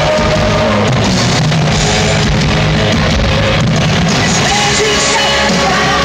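Live rock band playing loud on electric guitars, keyboard and drums, heard from the audience in an arena.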